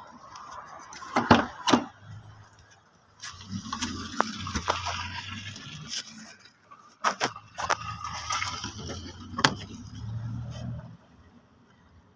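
Diesel pickup engine being cranked by its starter in two attempts of about three seconds each, neither catching: a crank-but-no-start condition. Sharp clicks come before each attempt.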